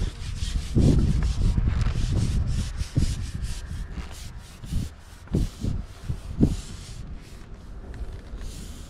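A carbon fishing pole being worked out over its rest: a rapid run of short rubbing strokes, with a few dull knocks as it is handled.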